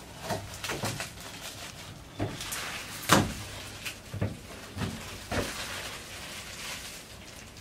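Work and handling noises inside a van's metal body: a string of irregular knocks and bumps, the loudest about three seconds in, as a garbage bag is set up under the cut roof hole to catch metal shavings.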